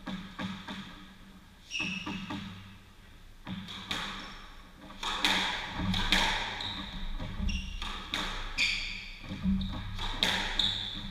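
Squash rally: the rubber ball struck by racquets and smacking off the court walls, a run of sharp hits roughly every second that comes faster and louder about halfway through, with short high squeaks of court shoes on the wooden floor between hits.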